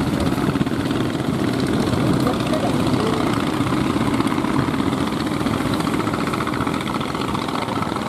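Fishing boats' engines running steadily through breaking surf, a dense continuous rumble mixed with the wash of the waves.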